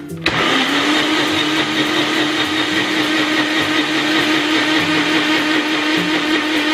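Nutri Ninja Pro personal blender switching on about a quarter second in, its motor spinning up quickly and then running steadily at full speed with a loud, even whine. It is blending hot coffee with butter and oil into a froth.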